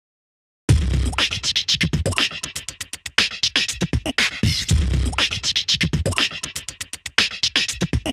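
Dead silence, then under a second in a music track starts abruptly: a heavy bass beat with rapid, dense percussive hits.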